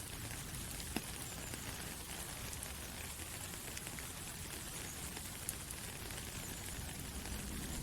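Soft rain falling through forest trees: a steady even hiss, with now and then a single louder drop ticking, one about a second in.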